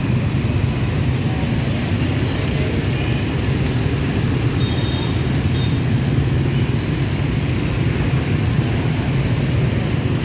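Steady city street traffic: a continuous rumble of passing motorbikes, scooters and cars.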